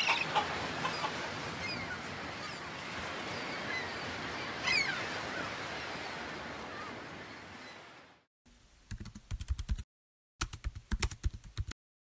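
Steady ambient noise with scattered short squeaky calls, like birds calling, fading out about eight seconds in. Then two quick runs of computer keyboard typing.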